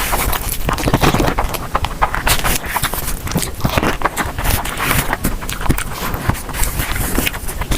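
Eating sounds close to the microphone: chewing with a dense, irregular run of clicks and smacks.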